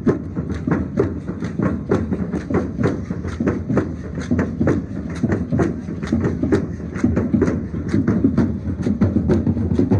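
Matachines dance percussion: a drum beating together with the sharp, rhythmic clacking and rattling of the dancers' hand rattles, at about four strikes a second.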